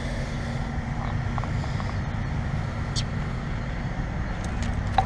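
Trane XR14 heat pump outdoor unit running: a steady hum from its compressor and condenser fan, with a brief tick about three seconds in.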